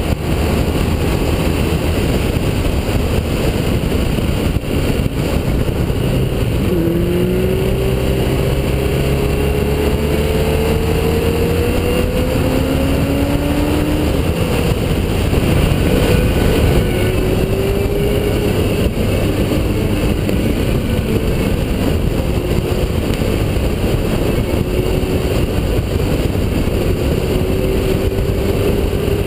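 Onboard sound of a BMW touring motorcycle at road speed: heavy wind rush over the camera with the engine note underneath. The engine's pitch climbs slowly for several seconds in the first half as it accelerates, then falls back as the throttle eases.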